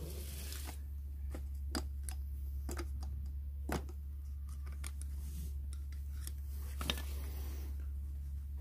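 Flat-head screwdriver tapping and scraping against a pit bike's cylinder head while prying out the old valve seal: scattered small sharp metal clicks over a steady low hum.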